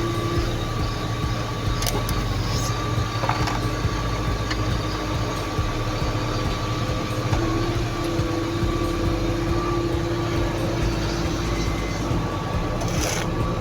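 Road-paving machinery engines running steadily, a low rumble with a steady whine over it and a few brief knocks.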